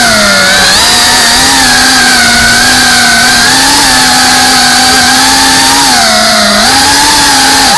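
FPV quadcopter's motors and propellers buzzing loudly, as picked up by its onboard camera. The pitch wavers with the throttle, dipping briefly about half a second in and again near the end.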